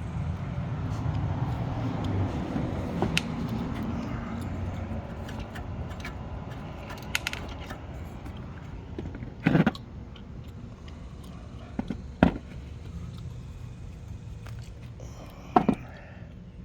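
Car engine running with noise from a failing alternator's worn bearings: a steady mechanical drone with a faint whine, a little louder for the first few seconds. Several sharp knocks or clicks stand out from it.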